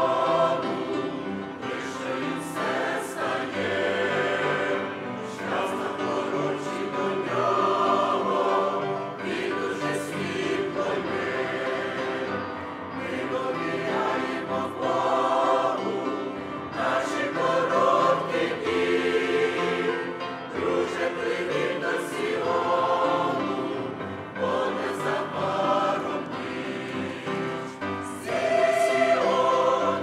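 Mixed adult church choir, men's and women's voices together, singing a Russian hymn in sustained, continuous phrases.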